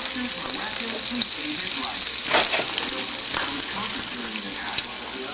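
Food frying in oil in a pan with a steady sizzle, and two short sharp utensil clicks against the pan about two and three seconds in.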